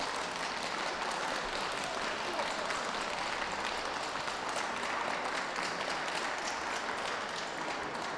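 Ringside audience applauding steadily, many hands clapping at once.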